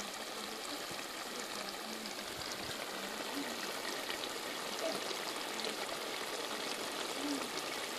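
Chicken curry boiling in a metal pot over a wood fire: a steady bubbling hiss.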